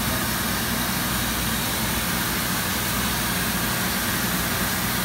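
Static Clean MCS2224 tray cleaning machine running: a steady rushing of air with a low hum underneath.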